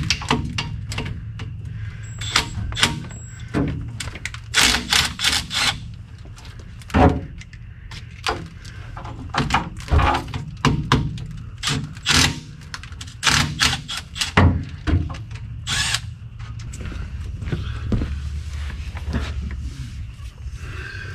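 Irregular metallic clicks, clanks and knocks of hand tools working on a car's rear axle and differential, some in quick clusters, over a steady low hum.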